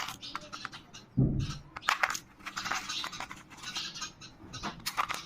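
Handling noise: scattered plastic clicks, taps and scrapes, with a short low thump about a second in.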